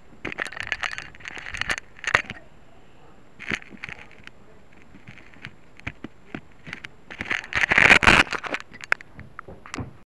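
Crackling, scraping handling noise on an 808 keychain camera's built-in microphone as the camera is picked up and moved: clusters of clicks and rubbing in the first two seconds, a short burst about three and a half seconds in, and the loudest stretch around eight seconds in.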